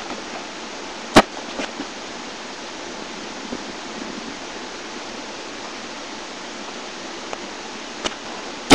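Steady hiss from a webcam microphone, broken by a few sharp knocks: a strong one about a second in, two faint ones, and a loud one at the very end.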